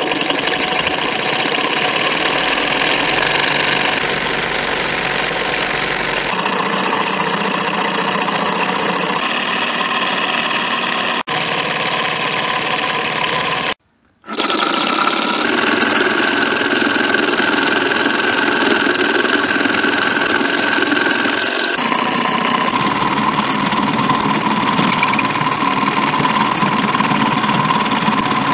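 Homemade scroll saw running: its DC motor whines steadily while the crank drives the blade up and down through a PVC sheet. The sound is cut off briefly about halfway through, and the pitch of the whine jumps abruptly a few times.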